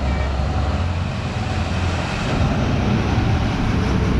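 A motor vehicle's engine running close by with road noise, growing a little louder about halfway through as it passes.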